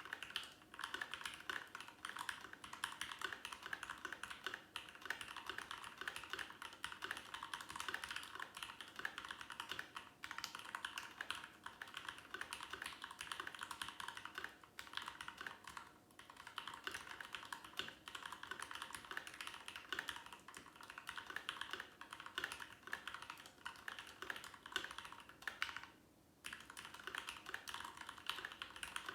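Continuous fast typing on a mechanical keyboard with lubed Thic Thock Marshmallow switches and GMK keycaps, a dense run of key clacks broken by a few brief pauses, the longest about 26 seconds in.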